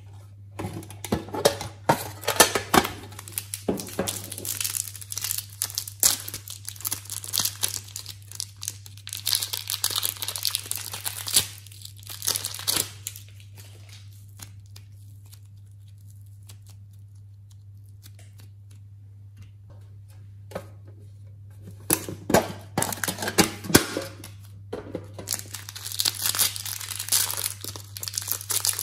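Crinkling and tearing of thin plastic packaging as hands unwrap and handle modelling clay. It comes in two busy spells with a quieter stretch in the middle.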